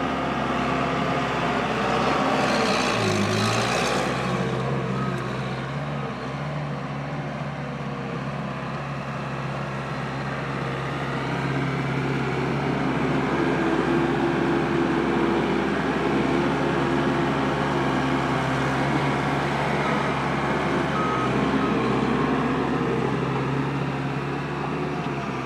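Case 75XT skid steer's 75-horsepower diesel engine running as the machine is driven and worked, its pitch shifting now and then. A brief louder rushing noise comes about two to four seconds in.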